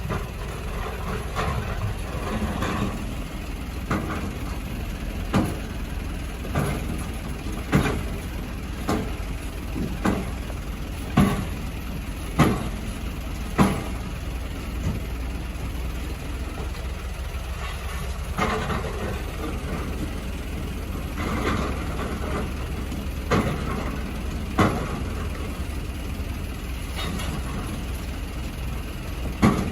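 Excavator's diesel engine running steadily, with a string of sharp knocks about once every second or so for a stretch, then a few more spread out later.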